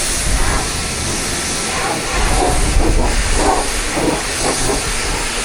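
Pressure washer spraying: a steady, loud hiss of high-pressure water jetting.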